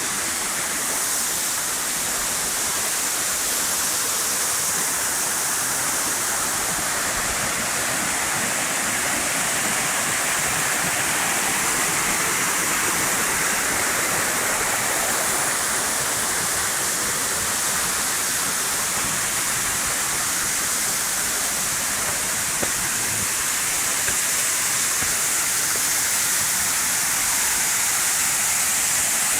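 Dzhur-Dzhur waterfall pouring: a steady, even rush of falling water.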